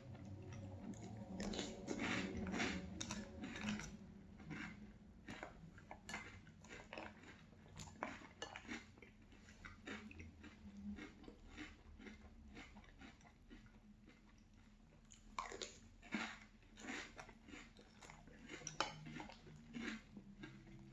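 Close-up chewing of crunchy Boo Berry cereal in milk: bouts of crisp crunching, heaviest near the start and again in the last few seconds, with quieter chewing in between.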